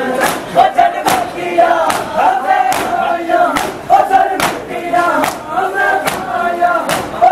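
A crowd of men chanting in unison while beating their bare chests with their hands together, a sharp slap landing on a steady beat a little faster than once a second.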